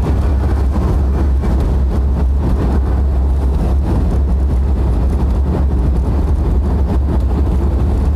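Jeep driving, with a steady low engine and road rumble that does not change.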